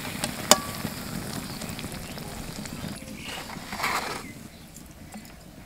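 Battered eggplant slices (beguni) sizzling in hot oil in a wok, with sharp metal clicks of a slotted spoon against the pan, the loudest about half a second in. The sizzling stops about three seconds in, and a brief rustling sound follows around four seconds.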